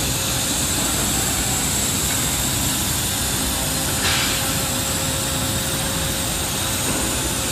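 Steady mechanical running noise with a faint constant hum, and a short higher-pitched hiss about halfway through.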